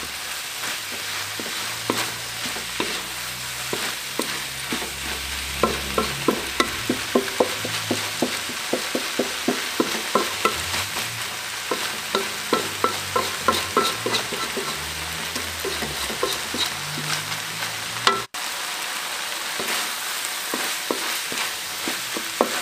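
Stir-fry sizzling in a wok, with a wooden spatula knocking and scraping against the pan several times a second as diced young corn, chicken gizzards and livers are tossed.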